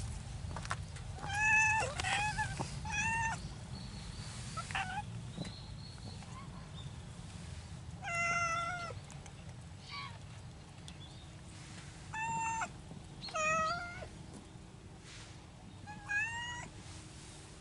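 Stray cats meowing: about nine separate short meows spread out, some bending up or down in pitch, over a steady low rumble.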